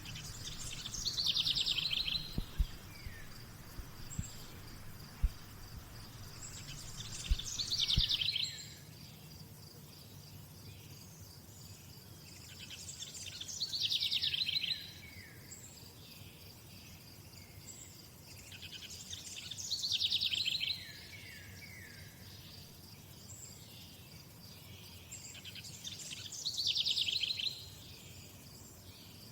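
A songbird sings the same short, fast trilled phrase five times, about every six seconds. A steady high insect hum runs underneath. A few sharp knocks fall in the first eight seconds.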